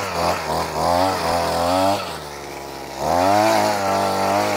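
Small engine of a walk-behind mechanical 'burrinho' terracing machine working on a coffee slope, its revs rising and falling under load. It drops back about two seconds in, then revs up again about a second later and holds steady.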